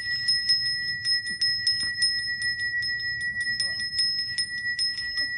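Balinese priest's handbell (genta) rung continuously, its clapper striking about four to five times a second over a steady, high, sustained ring.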